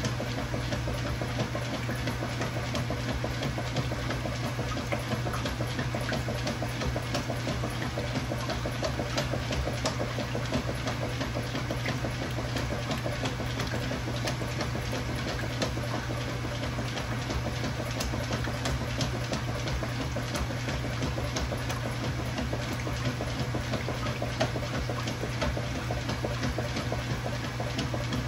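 Kenmore Ultra Fabric Care top-load washer with a KitchenAid Dual Action Agitator running, a steady motor hum under a dense, even clatter of water and mechanism.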